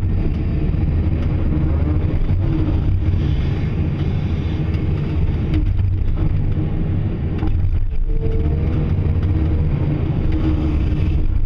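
Caterpillar 336E excavator's diesel engine running steadily under working load, heard from the operator's cab as the machine digs and sifts through rocky soil.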